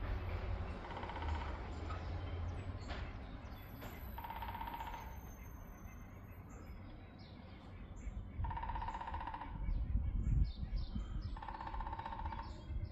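Woodpecker drumming: several short, rapid drum rolls on wood, each under a second long and a few seconds apart, the loudest near the middle and the end, over a low background rumble.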